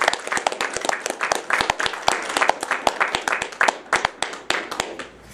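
A small audience applauding with many hands clapping, the claps thinning out and dying away near the end.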